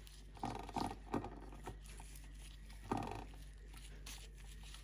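Rubber-gloved hands rubbing a thick spice-and-yogurt marinade into raw chicken legs: soft, wet squelching and smacking, with a few louder squishes about half a second in and again near three seconds in.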